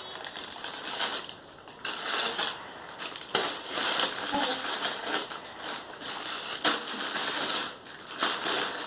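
Plastic instant-noodle packets crinkling and rustling in irregular bursts as they are handled and shuffled in their cardboard box.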